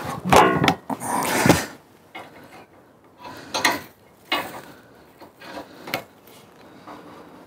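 Chainsaw mill's aluminium height-adjustment bracket being slid up a notch, with metal scraping, rubbing and clunks. The sounds come in a string of separate bursts, the loudest and longest in the first second and a half.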